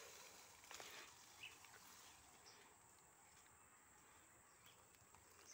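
Near silence: faint outdoor ambience, with a few faint clicks in the first couple of seconds.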